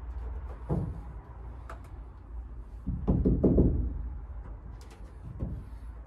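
A hand pressing and rubbing a foil-faced sound-deadening mat onto a van's bare sheet-metal side panel, giving soft knocks and rubbing on the metal, loudest about three seconds in, over a steady low rumble.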